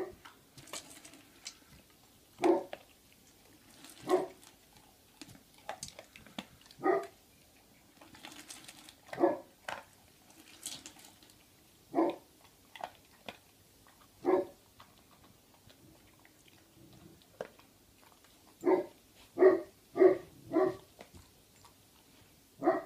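A Great Pyrenees puppy eating dry kibble from a stainless steel bowl in a stand: short sharp knocks and crunches every second or two, with a quick run of four near the end.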